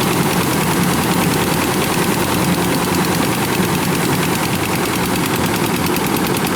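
Kubota combine harvester's engine running steadily under load while it cuts rice, with a fast, even clatter.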